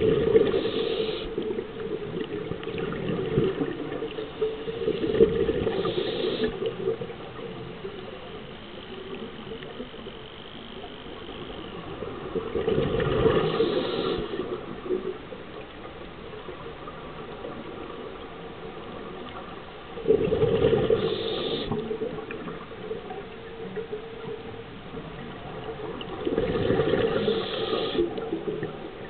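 Scuba diver's regulator exhaust: a loud rush of exhaled bubbles five times, every six to eight seconds, with quieter stretches between breaths, heard through an underwater camera housing.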